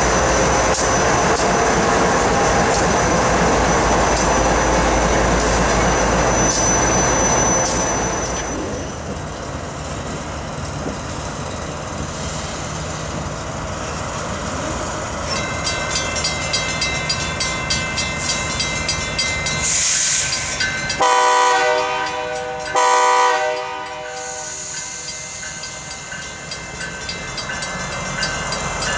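Train rumbling and rolling past for the first several seconds, then dropping away. Near the end a diesel locomotive horn sounds two blasts.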